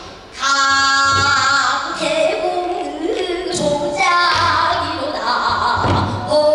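Pansori singing: a voice holding long sung notes that start about half a second in after a brief pause. Low thumps sound underneath now and then.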